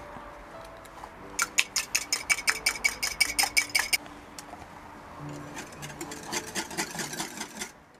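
Wire whisk beating an egg in a small glass bowl: quick clinking strokes, about eight a second, for roughly two and a half seconds, then softer clicking again near the end. Soft background music underneath.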